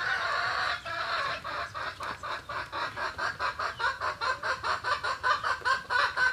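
A chicken clucking in a fast, even run of short calls, about four a second, growing louder toward the end.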